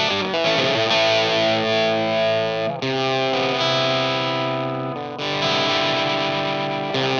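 Electric guitar played through a Sola Sound Mark IV Tone Bender fuzz pedal: sustained distorted chords left to ring, with new chords struck about three seconds and five seconds in.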